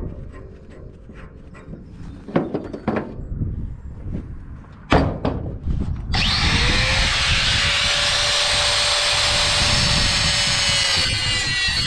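A few loud knocks and clanks. About six seconds in, an angle grinder spins up with a sudden start and runs steadily with a high whine as its cut-off disc cuts into metal.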